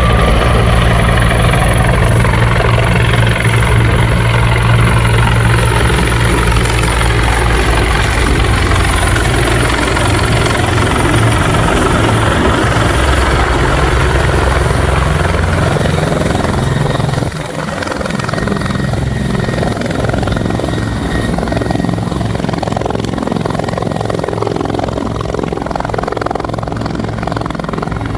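Bell 412EP four-bladed, twin-turbine helicopter running loud, with rotor beat and turbine noise. The pitch drifts slowly down over the first dozen seconds. About seventeen seconds in the deep rotor beat weakens and the sound settles a little quieter.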